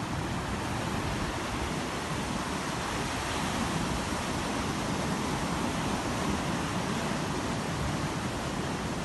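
Ocean surf breaking on a sandy beach: a steady rushing wash of waves that holds at the same level throughout.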